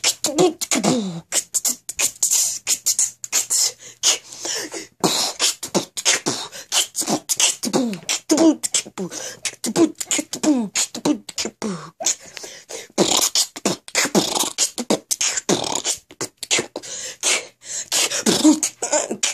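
A boy beatboxing: a fast, unbroken run of percussive mouth clicks and hisses, mixed with short vocal sounds that slide down in pitch.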